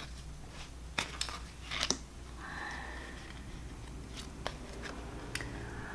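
Oracle cards being handled on a tabletop: a few light taps and slides of card stock as one card is laid on a pile and the next is picked up, the sharpest two about one and two seconds in.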